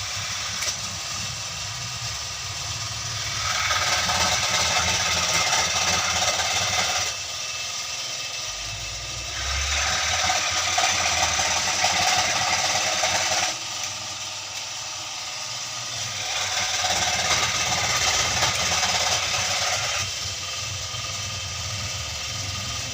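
Motor-driven cage-making machine running, growing louder for three or four seconds at a time, about every six to seven seconds, as it works under load between quieter spells.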